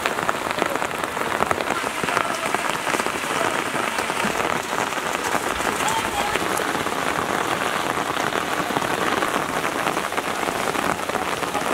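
Steady heavy rain falling on water and surfaces, a dense patter of close drops at an even level throughout.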